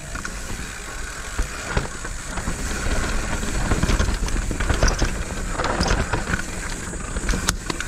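Mountain bike descending a dirt trail: a continuous noisy rumble of the ride that grows louder toward the middle, broken by sharp knocks and rattles of the bike over bumps.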